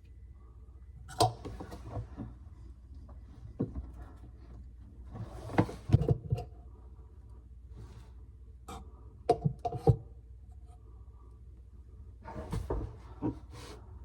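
Scattered knocks, clicks and short scraping or rustling sounds of tools and parts being handled, over a steady low hum.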